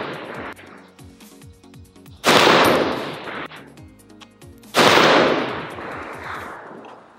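Stag Arms 10S AR-10 rifle in .308 (7.62x51) firing two single shots about two and a half seconds apart, each blast ringing out for over a second; the tail of a previous shot is still fading at the start.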